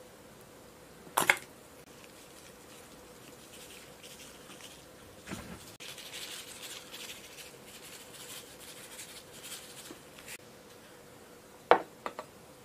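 A plastic bag rustling as seasoning powder is shaken out of it and patters onto fried food, for about five seconds in the middle. A short sputter of a chili-sauce squeeze bottle comes about a second in, and a couple of sharp knocks of a glass come near the end.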